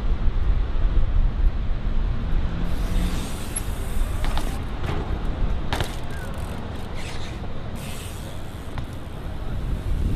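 City street background noise: a steady traffic rumble, with a few sharp clicks and knocks about four to seven seconds in.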